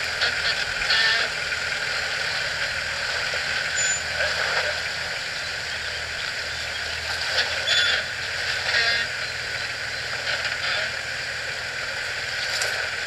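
Nissan Patrol GR engine running steadily at low revs as the 4x4 crawls through a deep muddy rut, with a steady hiss over it and a few faint clicks.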